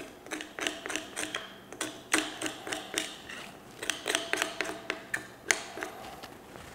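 Knife blade scraping down the exposed pork rib bones to clean them for a French-trimmed rack: a quick, irregular series of short scrapes, about three a second.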